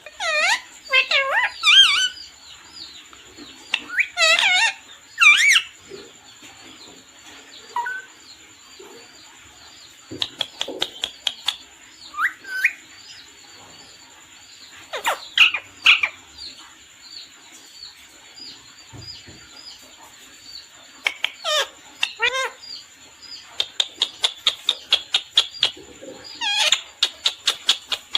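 Parrot calling: a series of short, loud squawks and chirps that bend up and down in pitch, with a quick run of sharp, clicky calls about four a second near the end.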